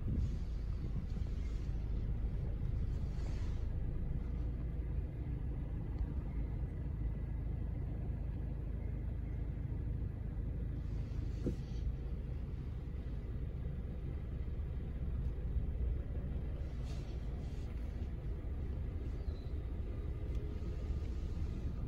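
Steady low rumble of outdoor airfield ambience, with a faint steady high tone underneath.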